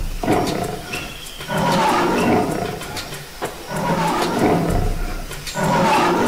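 Lion roar sound effect: several rough roars in a row, each about a second long with short breaks between.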